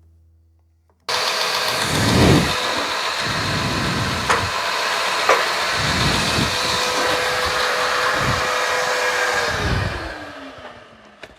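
Belt grinder running steadily after coming in abruptly about a second in, with a couple of sharp ticks partway through. Near the end it is switched off and winds down, its pitch falling.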